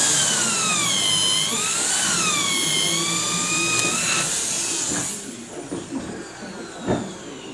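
Cordless drill-driver running under load as it bores or drives into a timber post, its whine sagging and rising in pitch with the load for about five seconds before stopping. A single knock follows near the end.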